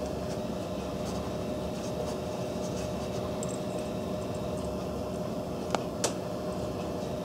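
Small metal parts of a Ruger 10/22 bolt clicking as a new extractor is worked into place against its spring-loaded plunger: faint ticks of handling, then two sharp clicks about a third of a second apart near the end, over a steady background hum.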